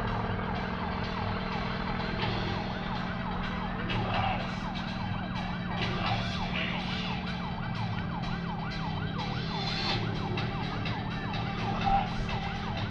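A siren yelping, its pitch sweeping up and down about three times a second, over a steady low drone from a distant aircraft engine.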